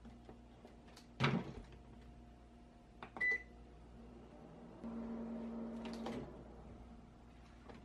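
Combination microwave oven: its door shuts with a knock about a second in, and a button gives a short beep about two seconds later. Then the oven hums steadily for about a second and a half before stopping.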